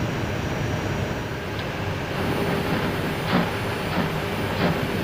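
Airbus A320 rolling out on the runway after landing, heard from the cockpit: a steady rumble of the wheels on the runway, with three thumps about two-thirds of a second apart in the second half.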